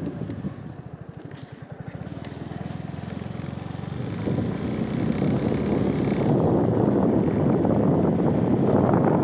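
Motorcycle engine running at low revs, its even firing pulses audible while the wind dies down. From about four seconds in, wind rush on the microphone grows steadily louder as the bike picks up speed.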